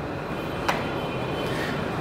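Steady rushing hum of a kitchen ventilation hood fan running, with a single sharp click about two-thirds of a second in.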